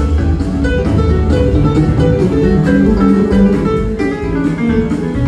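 Live band playing a guitar-led instrumental passage, heard from the audience in a theatre.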